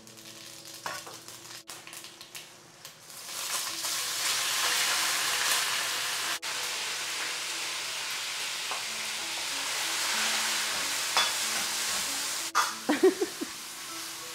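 Sliced lamb and cumin seeds frying in hot oil in a wok: a loud, steady sizzle that starts about three seconds in, with a few clinks of a metal ladle in the wok near the end.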